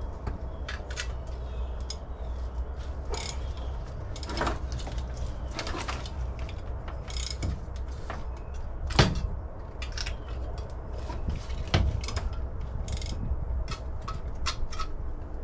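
Ratchet and socket working spark plugs out of a small-block Chevy 350: scattered irregular clicks and clanks of the tool on metal, over a steady low hum.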